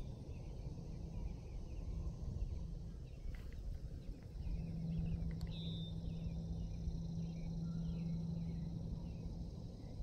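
Outdoor ambience: a low steady hum under faint high chirps. The hum grows stronger about four seconds in and eases near the end.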